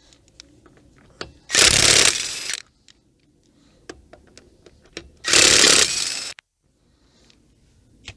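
Impact wrench running in two bursts of about a second each, spinning off a wheel's 19 mm lug nuts, with light clicks and knocks of the socket and nuts between.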